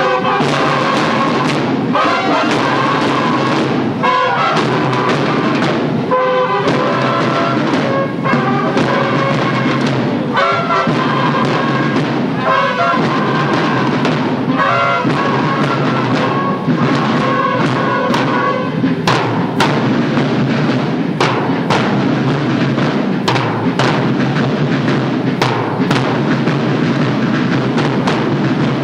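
School drum and bugle band playing a march: bugle phrases over a steady beat of snare and bass drums. Sharp drum hits stand out in the second half.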